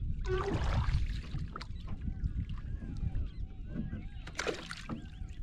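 Birds give a quick run of short, arched calls, starting about two seconds in, over a steady low rumble of wind and water around a small boat.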